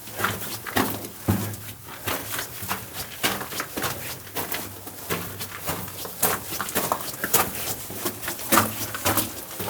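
Footsteps crunching on loose rock and gravel in a mine tunnel, a few irregular steps a second.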